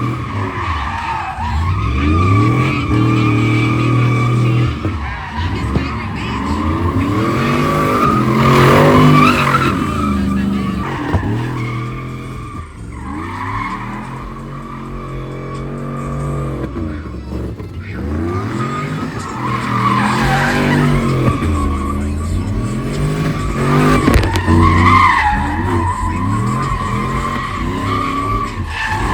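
Truck engine revving hard up and down, again and again, while its tires spin and squeal through slides in a burnout pit.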